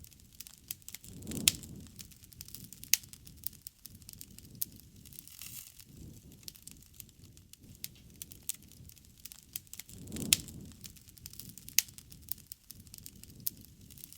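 Wood campfire crackling with frequent sharp pops and snaps. Two louder pops, about a second and a half in and again near ten seconds, each come with a low rushing swell.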